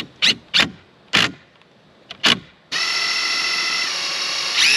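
A cordless drill runs steadily for about two seconds while drilling into a 2x2 wooden frame board, its pitch rising near the end. Before it, in the first second or so, comes a quick run of sharp snaps, about three a second.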